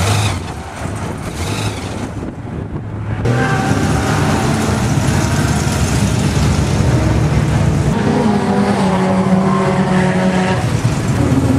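Car engines running loud: after a quieter first few seconds, the engine noise comes in suddenly about three seconds in. About eight seconds in, a steady engine note holds for two or three seconds.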